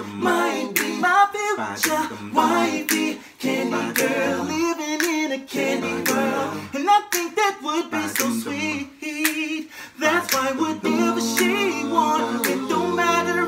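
Male a cappella group singing in close harmony, with a low bass voice stepping beneath the higher voices and sharp clicks keeping a steady beat.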